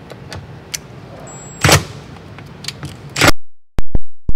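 Light clicks and scrapes of a long-shaft driver working a 7 mm bolt in the recess behind a door handle, with two louder clatters about one and a half and three seconds in. After that the sound cuts out to dead silence, broken by a run of sharp, very loud pops, like a digital audio glitch.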